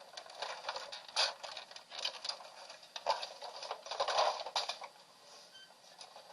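Hard plastic parts of an inkjet printer clicking and clattering as it is handled and taken apart, in irregular bursts of clicks and rattles that fade out near the end.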